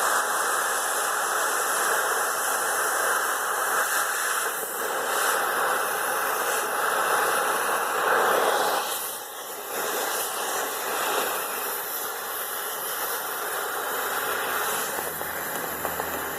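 Cutting torch hissing steadily while cutting scrap steel, dipping briefly about nine seconds in.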